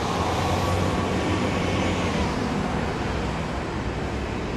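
City street traffic: a passing car's tyre hiss, loudest in the first two seconds and then fading, over the steady low engine drone of a city bus pulling into the intersection.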